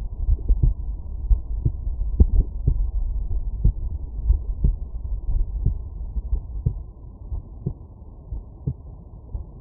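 Human heart beating, heard through a stethoscope at Erb's point: lub-dub thuds about once a second over a low rumble, growing quieter after about seven seconds.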